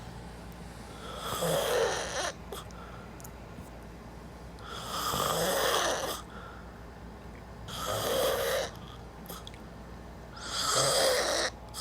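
A person snoring: four snores about three seconds apart, each lasting about a second.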